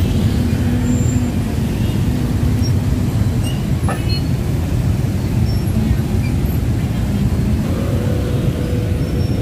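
Steady, loud low rumble of heavy vehicles running, with faint steady hums and a single click about four seconds in.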